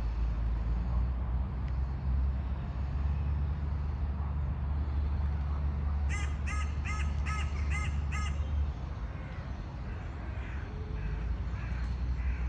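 A crow cawing about six times in quick succession, some six seconds in, over a steady low rumble that stops a little before nine seconds in.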